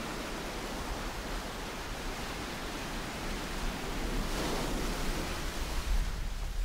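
Waves breaking and washing up a sandy beach: a steady hiss that swells about four seconds in as a wave comes in, with a low wind rumble on the microphone.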